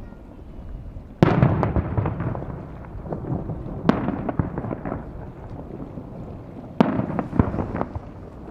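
Aerial fireworks shells bursting: three sharp booms about two and a half to three seconds apart, each followed by a run of crackling.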